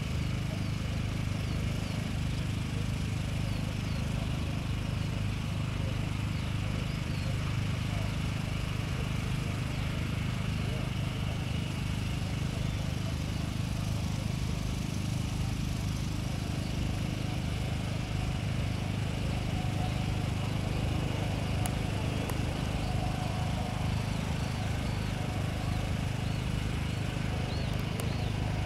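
Steady low rumble of a distant F/A-18C Hornet's twin jet engines as it flies in on landing approach, with faint bird chirps.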